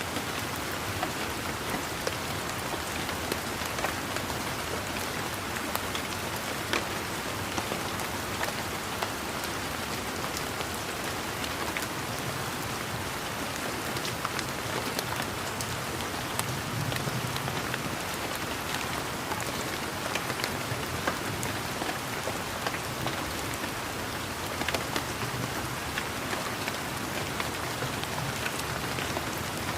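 Steady rain falling, with many individual drops tapping close by over the even hiss of the downpour. A faint low rumble sits underneath through the middle of the stretch.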